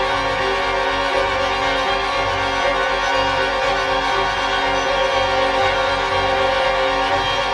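Orchestral film score: a symphony orchestra's string section holds sustained chords over a low, steady bass.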